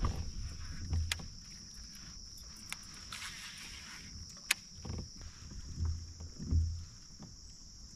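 Kayak on a creek: low knocks and bumps on the hull, with a few sharp clicks, over a steady high-pitched insect chorus.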